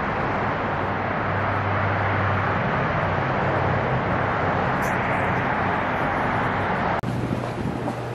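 Steady outdoor background noise with a low hum under it. It changes suddenly about seven seconds in to a slightly quieter noise of the same kind.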